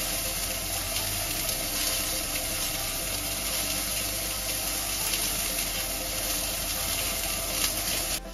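Entrecôte steak frying in a non-stick pan on a gas hob: a steady sizzle with faint crackles.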